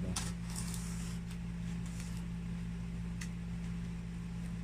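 Packaging of a boxed toy figure being handled: a few short rustles and light clicks over a steady low hum, with one sharper click about three seconds in.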